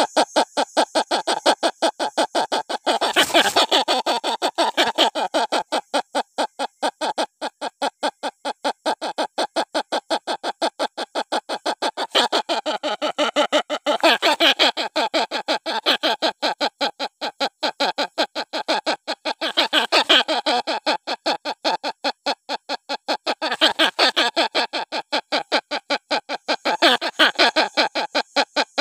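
Hornbill chick crying: a rapid, unbroken string of short, nasal-sounding call notes, about five a second, swelling and easing in loudness every few seconds. A call of this kind is used as a lure to draw in adult hornbills.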